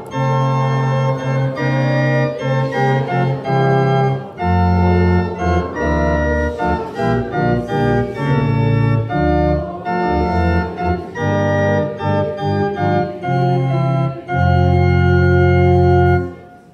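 Church organ playing a slow passage of sustained chords, ending on a long held chord that stops just before the end.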